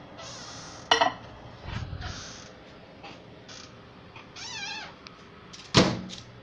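A cat meowing, one wavering call about four and a half seconds in. Two sharp knocks sound about a second in and near the end, the second the loudest, with brief hissing noises between them.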